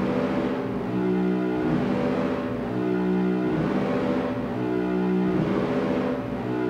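Lo-fi raw dungeon synth music: a low, buzzy synthesizer phrase of held chords, repeating about once a second over tape-like hiss.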